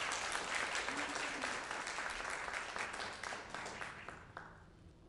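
Congregation applauding, the clapping thinning out and dying away about four seconds in.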